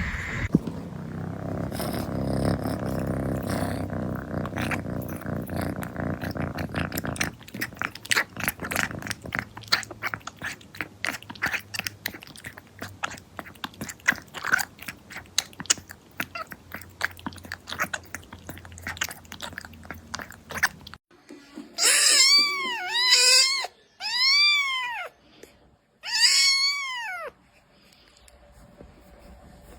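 Kitten drinking milk with rapid wet clicks, then meowing four times in loud, high calls that rise and fall. A steady rough noise fills the first several seconds before the clicking.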